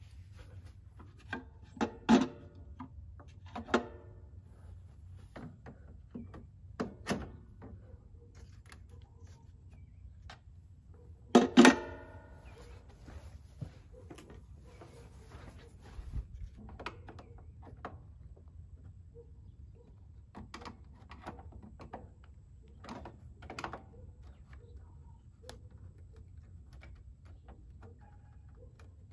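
Scattered knocks and clicks of a plastic surge protector being handled and fitted against the underside of a metal load-center enclosure. The loudest knock comes about eleven seconds in, with smaller ones near two, four and seven seconds.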